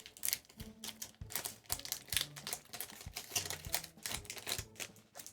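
Foil Pokémon booster pack being torn open and its cards handled: a run of quick, irregular crinkles and clicks.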